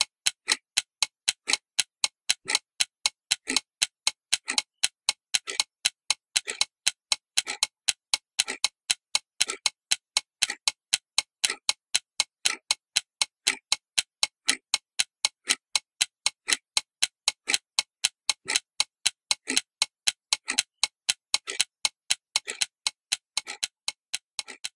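Steady clock-like ticking: sharp, even ticks about four a second, with a deeper-sounding accented tick once a second, and nothing else in between.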